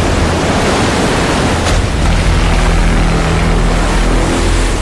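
Storm at sea in a film soundtrack: heavy waves surging and crashing over a deep, steady rumble, with a low droning tone coming in about two seconds in and holding.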